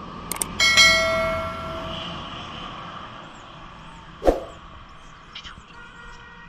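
A mouse-click sound and a bell ding from a subscribe-button overlay: two quick clicks, then a bright bell tone that dies away over a second or so. A single sharp thump comes about four seconds in, over low outdoor background noise with faint bird chirps.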